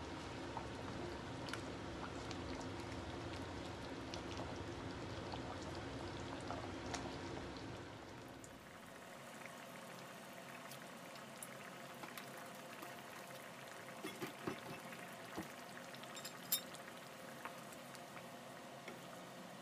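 Tomato sauce simmering and bubbling around pork spare ribs in a frying pan, stirred with a wooden spoon. A few light knocks of the spoon come near the end.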